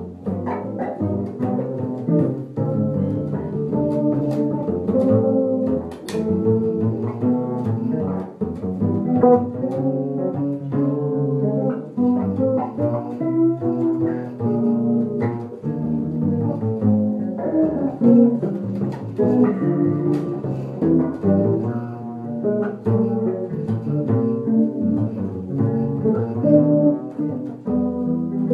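Electric bass and a plucked upright double bass playing a jazz tune together, the electric bass playing a busy run of fingerpicked notes over the walking upright bass.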